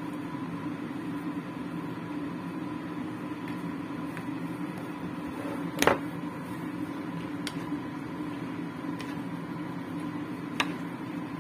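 Steady machine hum of a kitchen appliance motor with a thin steady whine over it, broken by a few knocks of kitchenware against the wok, the loudest about six seconds in and a lighter one near the end.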